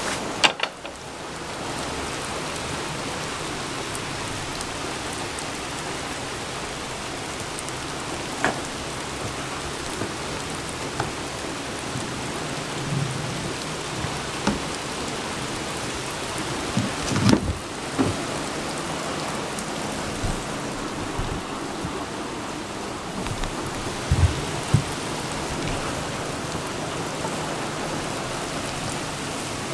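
Steady rain falling, an even hiss, with a few short knocks and thumps scattered through it.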